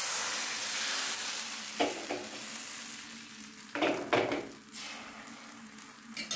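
Thin neer dosa batter sizzling on a hot nonstick tawa, the hiss fading as the crepe sets and its lacy holes form. A couple of brief knocks from the ladle come about two and four seconds in.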